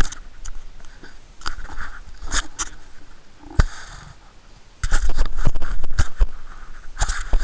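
Handling noise on an action camera's built-in microphone: rubbing, scraping and clicks, with a sharp knock about halfway through. From about five seconds in, the rumble and crackling get louder and more continuous.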